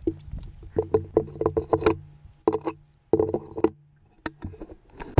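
Footsteps crunching through dry grass and rock, with the gear and the shotgun-mounted camera knocking, as a hunter walks quickly over rough ground. The short knocks come in clusters of several a second over a low rumble of handling on the microphone.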